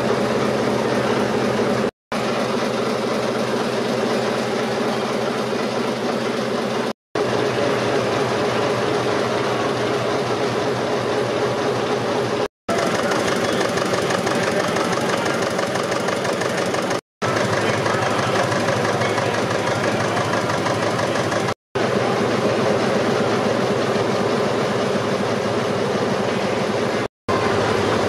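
Stationary engines running with a steady mechanical clatter, heard as a run of short clips. Each clip is cut off by a brief gap of silence.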